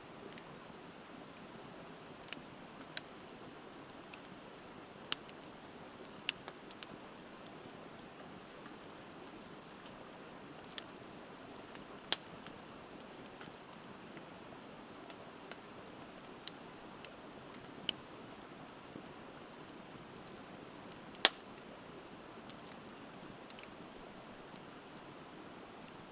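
Wood bonfire crackling, with scattered sharp pops and snaps at irregular intervals, the loudest about three-quarters of the way through, over the steady rush of a river.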